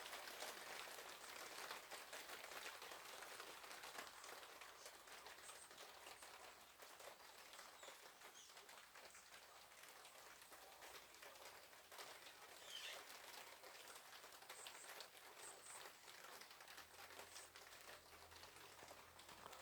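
Light rain pattering on a garden patio, a faint steady hiss of many small drops that eases slightly over time. A few faint bird calls come through now and then.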